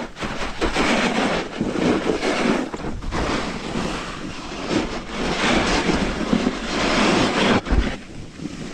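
Snowboard sliding and scraping over snow, mixed with wind rushing on the helmet camera's microphone. It swells and fades in surges every two or three seconds and eases off near the end.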